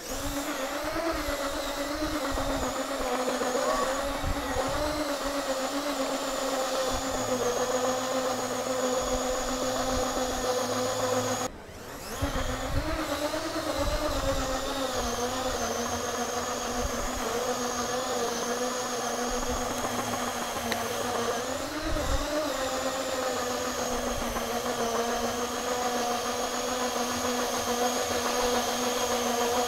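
Whine of the brick-built scooter's sixteen BuWizz Micro Motors in its wheels, driving it under an adult rider's weight: a steady hum whose pitch wavers slightly. It breaks off briefly about twelve seconds in and then picks up again.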